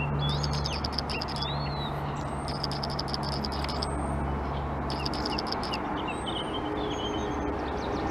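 Small birds chirping and twittering again and again, short rising and falling notes, over the low steady drone of a diesel train's engine idling, which cuts out about five seconds in.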